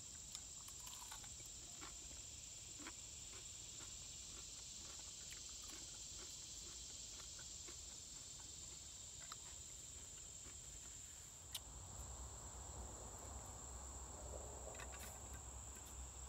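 A steady high-pitched insect drone in the woods, with scattered light clicks of a fork against a metal pan. A faint low rumble joins in about twelve seconds in.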